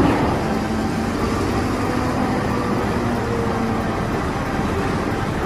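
Caterpillar 992G wheel loader's diesel engine running steadily as the loader dumps a bucket of dirt into a dump truck.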